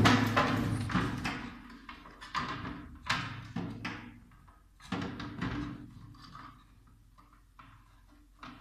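Plastic flush tank being handled and knocked as hands work on it: a loud scuffing in the first second, then several separate knocks over the next few seconds, trailing off into quieter handling.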